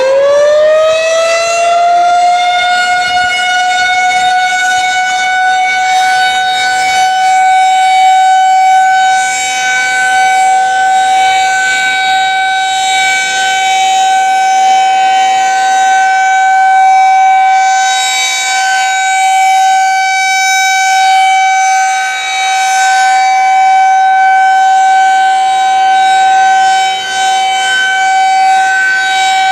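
Federal Signal 2001-SRNB electromechanical outdoor warning siren on its monthly test, finishing its wind-up in the first second and then holding a steady, loud single tone. Its loudness wavers a little as it sounds.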